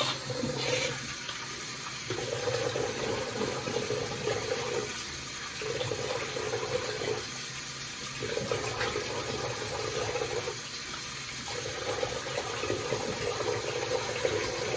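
Water running from a bathroom tap into a sink. The sound of the stream changes every couple of seconds, as when something is moved in and out of the flow.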